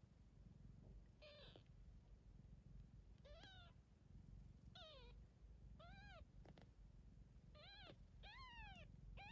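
Newborn Ocicat kittens mewing: about seven short, high, faint mews, each rising then falling in pitch, a second or so apart, over a low steady rumble.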